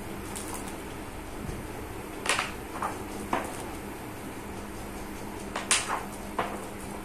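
Stiff laminated pages of a photo album being flipped by hand, giving a few sharp slaps and flicks as the pages fall over, in two bursts, one about two seconds in and another near the end, over a steady low hum.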